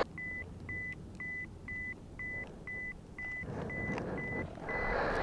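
Short high electronic beep repeating evenly about twice a second, steady in pitch, with soft rustling noise rising in the second half.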